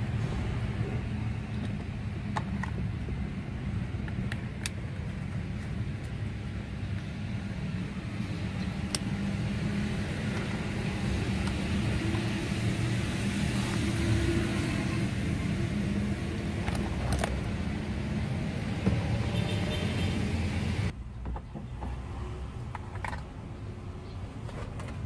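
A car engine running steadily with a low, even rumble, and a few faint clicks over it. About 21 seconds in, the higher part of the sound drops away suddenly while the low rumble continues.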